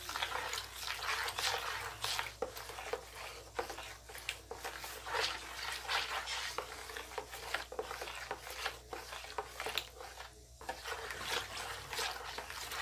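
Plastic spoon stirring oil and ethanol in a plastic basin: the liquid sloshes and the spoon rubs and scrapes in quick, irregular strokes.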